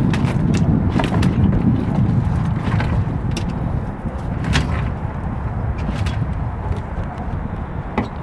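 Irregular knocks and thuds of a freshly landed sturgeon and the landing net against the boat deck, thickest in the first few seconds with one sharper knock about halfway, over a steady low rumble.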